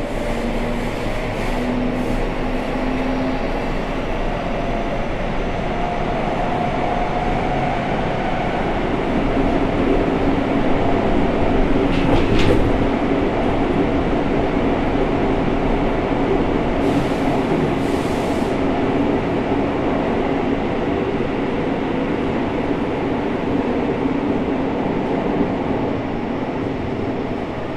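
Running sound heard inside a Seibu 6000 series train car, with its original unrenewed Hitachi GTO-VVVF inverter: wheel and tunnel rumble under the inverter and traction-motor whine. The whine climbs in pitch over the first several seconds and then holds steady, with a few brief high clicks partway through.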